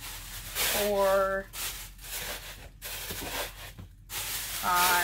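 Thin plastic shopping bags crinkling and rustling in repeated bursts as they are stuffed into a plastic bag-holder tube. A short held vocal note, like a hum, sounds twice: about a second in and at the very end.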